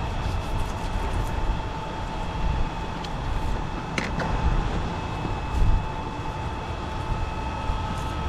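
A steady mechanical hum of several held tones over a low rumble, with one sharp click about four seconds in.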